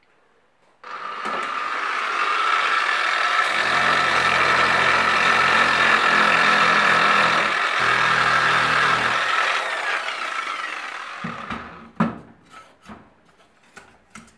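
Handheld electric sander with a round pad sanding a PETG 3D-printed gauge mount. It starts about a second in, runs steadily with a lower hum under it through the middle, and winds down at about eleven seconds, followed by a few knocks as the sander and the part are handled.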